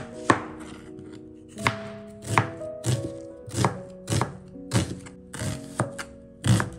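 Knife slicing through an onion and knocking onto a plastic cutting board: a steady run of about ten cuts, roughly one every half second, with background music underneath.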